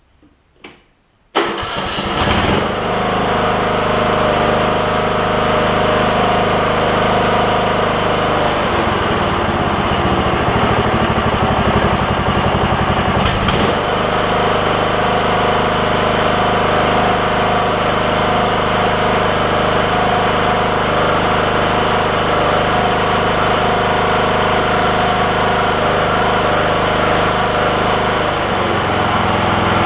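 Replacement engine on a riding lawn mower cranking and catching about a second and a half in, then running steadily. This is its first start after installation. Its note shifts for a few seconds in the middle and again near the end.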